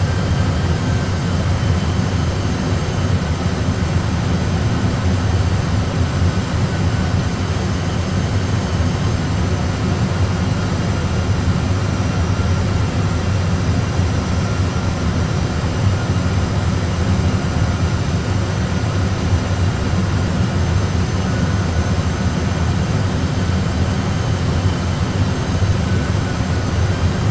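Steady low rumble of an Airbus A320 cockpit in flight on approach: engine and airflow noise as played in a flight simulator, unchanging throughout.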